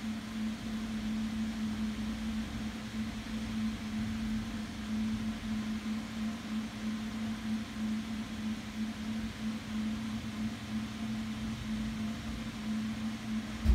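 Steady low electrical or machine hum, like a fan or appliance running, over a faint low rumble.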